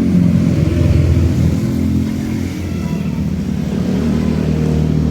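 Road vehicle engine running close by with a deep, steady rumble, loudest in the first two seconds and easing off a little after.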